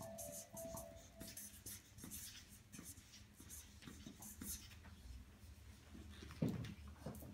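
Black markers squeaking and scratching across a coated poster in many short strokes as words are written. A single dull thump comes near the end.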